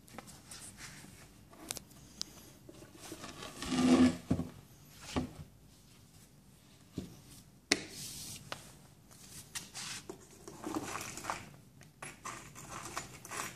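Particleboard cabinet panels being handled and fitted together: scraping and rubbing with scattered knocks and clicks, the loudest a scrape-and-knock about four seconds in and a sharp knock near eight seconds.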